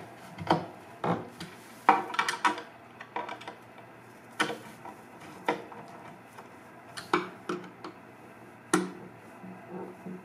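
Irregular sharp metal clicks and knocks of a hand screwdriver working the cam lock fittings of a flat-pack cabinet as the cams are tightened, some clicks coming in quick clusters.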